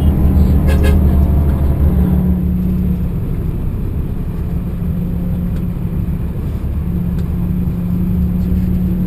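Tour bus engine and road noise heard from inside the cabin: a steady low drone that eases off a little about three seconds in.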